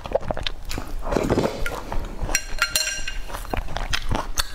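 Close-up eating sounds: slurping soup from a spoon and chewing, with many small wet mouth clicks. About halfway through comes a brief ringing clink.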